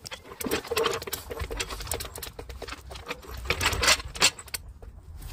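Quick, irregular metallic clicking and rattling as a trolley floor jack is handled and its handle worked, dying away a little before the end.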